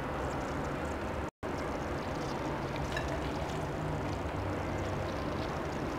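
Steady low hum and hiss of background noise, with a few faint clicks and a brief complete dropout just over a second in.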